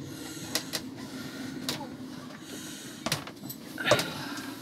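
Knocks and clicks of someone climbing down a sailing yacht's companionway steps into the cabin, over a steady low hum. There is a handful of sharp knocks, the loudest near the end.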